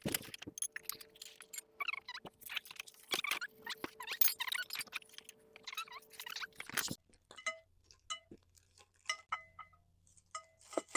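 Golf practice net frame parts clinking and rattling as they are handled and fitted together to build the base: a dense clatter for about seven seconds, then scattered clicks, some with short ringing notes.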